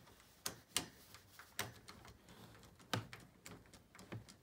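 A few faint, irregularly spaced metallic clicks and ticks from a screwdriver and an 8 mm spanner tightening a nylock nut onto a bolt.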